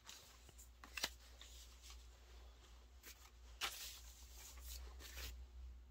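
Photocards being handled and set down on an album and a paper poster: faint rustling with a few light taps, the sharpest about a second in.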